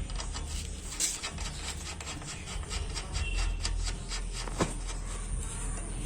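Hand work on a motorcycle's rear axle and chain adjusters: irregular scraping and rubbing of metal parts with many small clicks, a sharper click about a second in and another a little past the middle.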